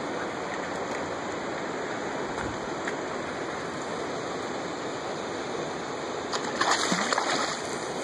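Fast-flowing river water rushing steadily. Near the end a hooked steelhead splashes and thrashes at the surface, briefly louder than the current.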